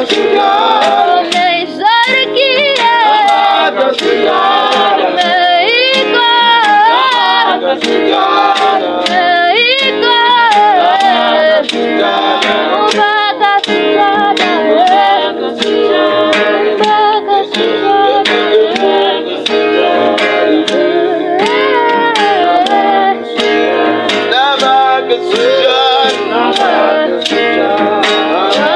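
Gospel worship music: singing over guitar and a steady drum beat.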